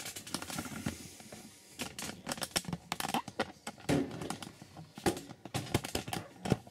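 Handling noise as the camera is moved: irregular clicks, taps and rustles, with a few louder knocks about two, four and five seconds in.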